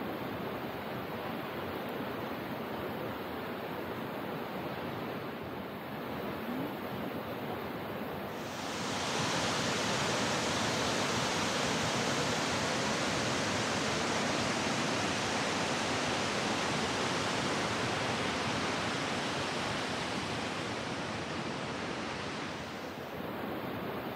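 Waterfall water rushing, an even, steady noise. About eight seconds in it becomes louder and brighter, and it drops back near the end.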